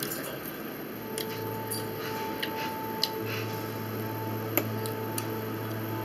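Eating at a table: a fork picking up strawberry pieces and clicking lightly against a plate, with soft wet chewing. A faint steady hum comes on about a second in.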